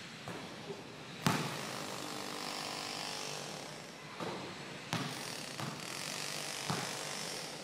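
Basketball bouncing on a concrete court: about five separate sharp bounces at uneven intervals, the loudest about a second in, over steady background noise.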